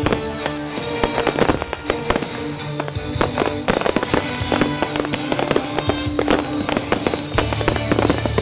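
Fireworks bursting in quick succession, many sharp bangs and crackles, over a musical soundtrack played with the display.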